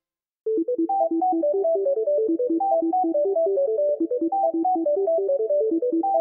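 Background music: after a moment of silence, a quick, repeating pattern of short notes starts about half a second in and keeps running at an even pace.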